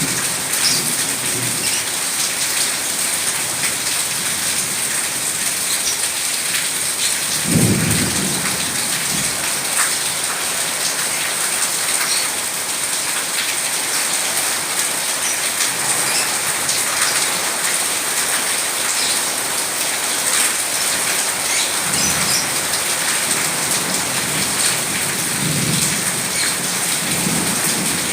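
Steady heavy rain falling, with a short low rumble of thunder about seven and a half seconds in and softer rumbles of thunder near the end.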